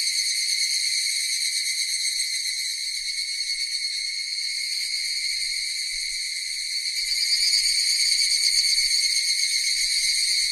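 Cicadas buzzing in a continuous high drone that swells a little louder about two-thirds of the way through.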